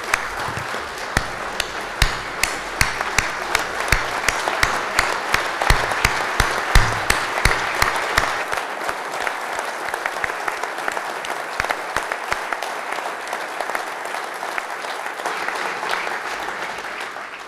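Large audience giving a standing ovation: sustained applause, many hands clapping at once, fading away near the end.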